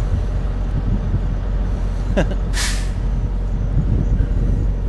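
Steady low hum of idling semi-trucks, with a short hiss of released air from a truck's air brakes a little past the middle.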